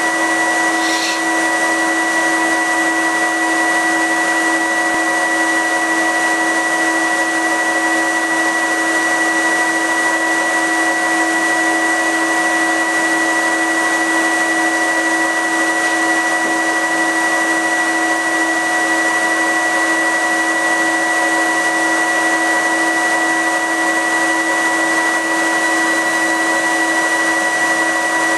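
The laser cutter's fume extraction and filter unit running, really loud: a steady rushing blower noise with several constant whining tones held over it, without any change in speed.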